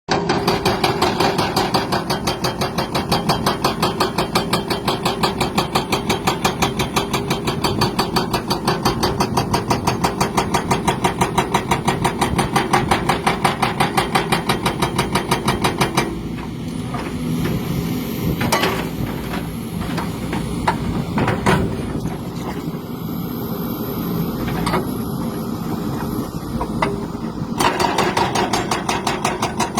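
An engine running with a rhythmic tapping knock, about six beats a second: a 'tot tot tot' noise whose cause is in question. The knock eases into a smoother running sound about sixteen seconds in and comes back near the end.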